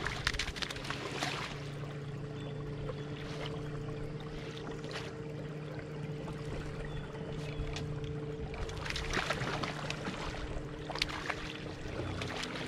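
A hooked trout splashing at the surface beside the boat as it is played toward the landing net, in bursts near the start and again about nine to eleven seconds in, over the steady low hum of the boat's motor.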